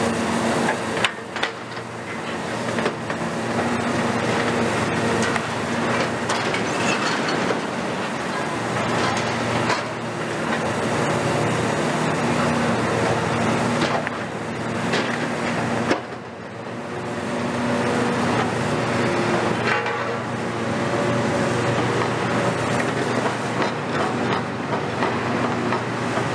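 Long-front demolition excavator's diesel engine and hydraulics running under load, its pitch shifting now and then, with repeated metallic knocks, clanks and scraping as the steel roof structure is cut and pulled apart.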